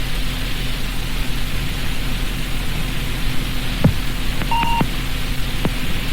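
Telephone line or answering-machine playback between messages: steady hiss and mains hum, two sharp clicks, and a short two-tone electronic beep about four and a half seconds in, with another beep starting at the very end.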